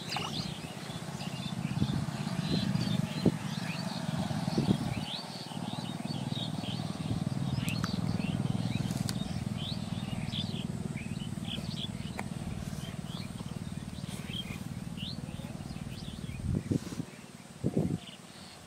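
Small birds chirping rapidly and continuously, many short quick calls, over a steady low rumble that fades out about seventeen seconds in, followed by a couple of soft knocks near the end.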